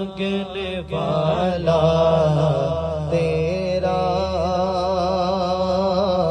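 A man unaccompanied singing an Urdu naat into a microphone, holding long, wavering melismatic notes. A steady low hummed drone from a second voice runs underneath.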